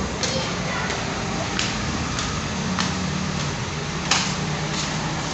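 Steady background noise with a low hum, with scattered light clicks or taps.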